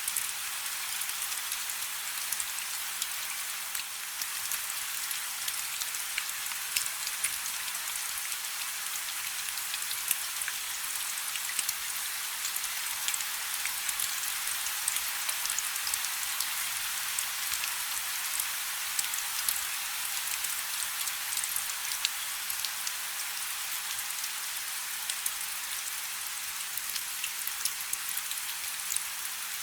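Steady rain: an even hiss with many sharp ticks of individual drops scattered through it.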